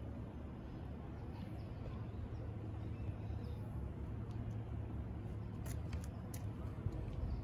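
Steady low outdoor rumble, with a few faint clicks about six seconds in.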